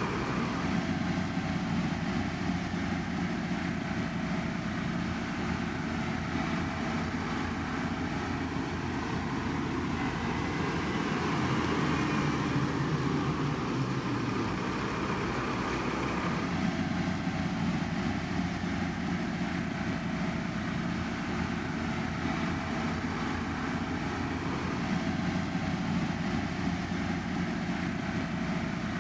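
Heavy road-construction machinery running steadily, a continuous engine and machine noise with no distinct knocks or pauses.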